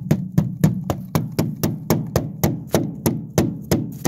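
Big channel-lock pliers used as a pick, chipping thick ice off an aluminum boat deck: a steady run of quick knocks, about three to four a second, each with a short low ringing tail.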